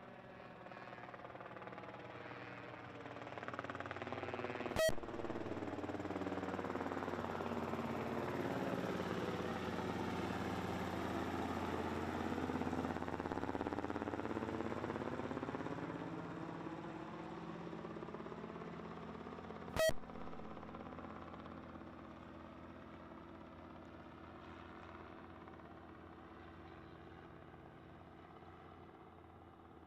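An aircraft flying past: its engine noise swells, peaks around the middle and slowly fades, with the sweeping whoosh of a passing plane. Two sharp clicks cut in, one about five seconds in and one about twenty seconds in.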